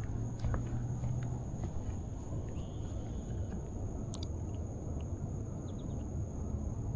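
Outdoor ambience: a steady low rumble with a thin steady high hum over it, scattered light clicks, and a brief faint chirp about three seconds in.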